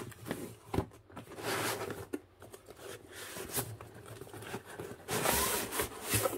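Cardboard box being handled and slid open, cardboard scraping against cardboard. A few light knocks come first, then a short scrape about a second and a half in, and a louder, second-long scrape about five seconds in.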